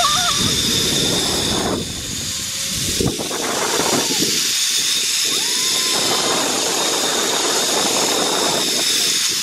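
Strong wind rushing and buffeting on the microphone during a fast zipline ride, with the trolley running along the steel cable.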